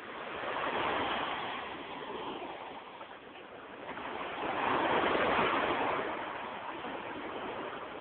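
Sea water washing around close to the microphone, small waves swelling up twice and easing off.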